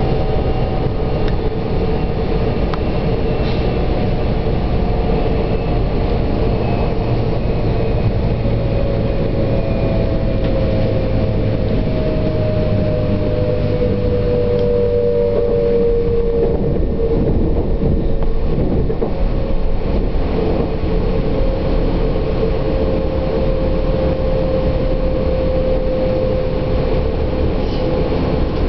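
A passenger train running over the tracks, heard from on board: a steady low rumble with long, thin whining tones that slowly slide down in pitch, strongest about a third of the way in.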